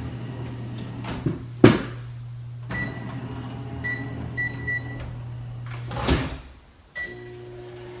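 Under-counter microwave drawer being loaded and started. A glass bowl is set in with two sharp knocks, then come several short keypad beeps as the time is entered. The drawer slides shut about six seconds in, and after a final beep the oven starts running with a steady hum.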